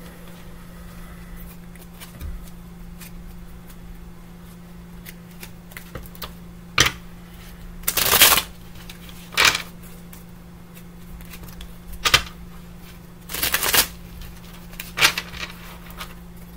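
Tarot cards being shuffled and handled: about six short bursts of card shuffling, starting about halfway through, over a steady low hum.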